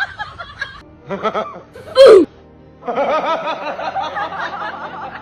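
Rapid, repeated laughter-like vocal sounds, broken about two seconds in by one short, very loud cry that falls in pitch.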